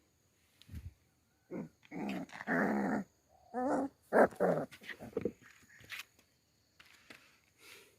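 Puppy growling, a string of short growls with wavering pitch in the first half, trailing off into faint small noises.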